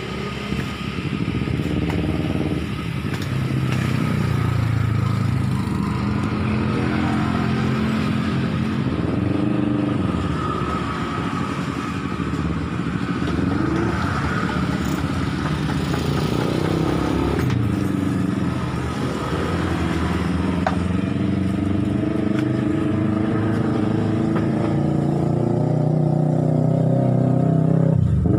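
Road traffic: engines of passing vehicles running steadily, their pitch rising and falling as they go by.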